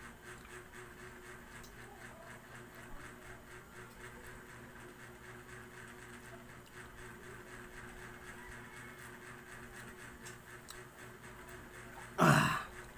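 Faint mouth sounds of a man eating ripe mango flesh over a steady low hum. Near the end, a single short, loud burst of noise close to the microphone, about half a second long.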